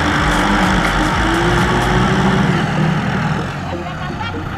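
Diesel engines of two Kubota farm tractors running hard as one tries to tow the other, which is stuck in mud with a loaded trailer. The level eases somewhat about three and a half seconds in.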